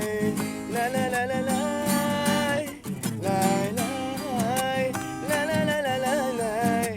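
Background music: a wavering, pitch-bending melody line over a guitar accompaniment.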